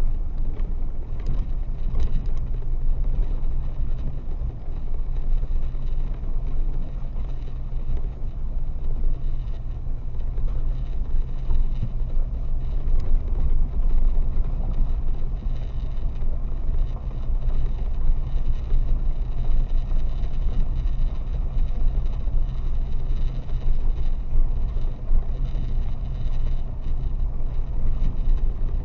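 Car interior noise while driving slowly on a dirt and gravel road: a steady low rumble from the engine and the tyres on the gravel, with a few faint clicks near the start.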